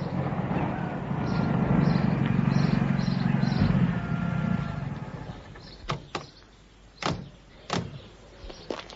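Sound effect of a car engine running as the car draws up, dying away about five seconds in. A few sharp clunks of car doors opening and shutting follow.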